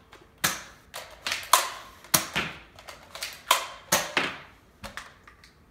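Nerf blaster being cocked and fired again and again: a string of about nine sharp plastic clacks and pops at uneven intervals, thinning out near the end.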